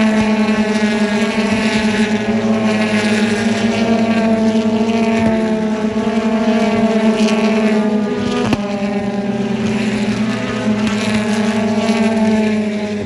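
British Touring Car Championship race car engines running hard, a steady, loud drone with several engine notes slowly falling in pitch, and one sharp crack about eight and a half seconds in.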